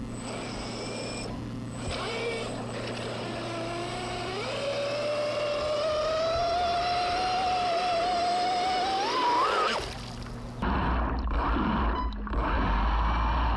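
RC boat's small electric drive motor whining, its pitch rising slowly as the throttle is opened, then climbing steeply before cutting off near ten seconds in. After that, heard from on board, comes a loud rumble of churning water and wind.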